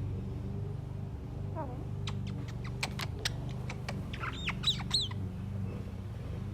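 Common myna calling: a falling whistle, then a run of sharp clicks and a few squeaky notes that rise and fall, over background music.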